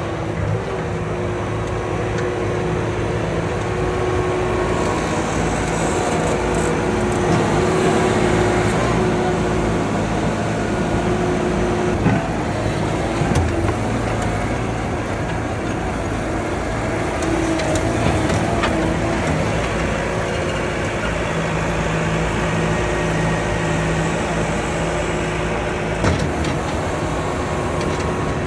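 Bobcat skid steer loader's engine running steadily while working, its pitch shifting a little as it is worked. A few sharp metallic clanks sound over it, one about twelve seconds in and another near the end.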